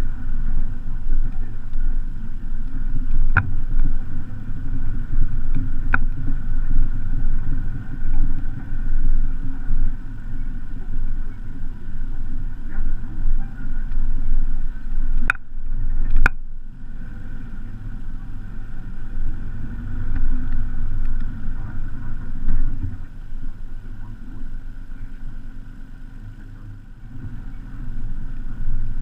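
Iveco Daily 4x4's diesel engine pulling the truck slowly up a rough, rocky track, heard as a low, uneven rumble. A few sharp knocks from the truck jolting over rocks come through, the two loudest about halfway through.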